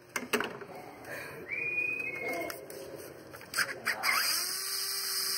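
Clicks and clatter of a socket on an extension being fitted onto an 8 mm engine-cover bolt, then about four seconds in a small cordless power tool whirs up and runs steadily, spinning the bolt out.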